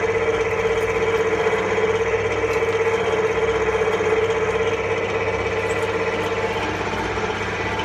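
Industrial frozen meat grinder running: a steady machine drone with one strong, even tone, easing slightly in level about five seconds in.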